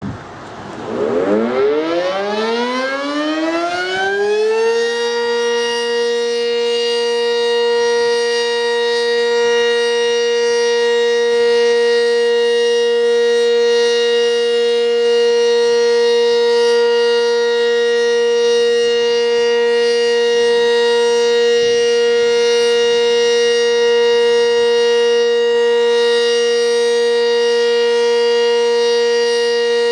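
Sentry 20V2T outdoor warning siren winding up, its pitch rising for about five seconds, then holding a steady tone during a routine test.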